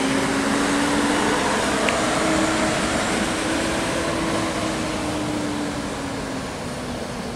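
Mercedes-Benz OH 1525 coach's diesel engine running as it rounds a hairpin bend, its note rising slightly and then easing, over a steady hiss of road noise. The sound fades a little near the end as the coach pulls away.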